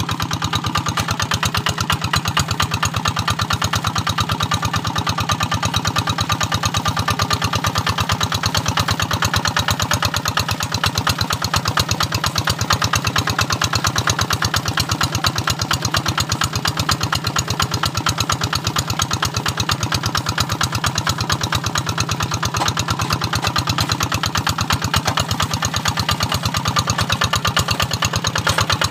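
Kubota RD 85 single-cylinder diesel engine of a Quick G1000 Boxer two-wheel hand tractor running steadily under load while pulling a moldboard plough through dry paddy soil, with a fast, even firing beat.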